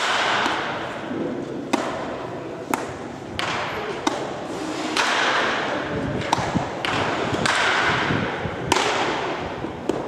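Baseballs smacking into a catcher's mitt in a catching drill: several sharp pops, one every second or two, over a background of voices in a large indoor hall.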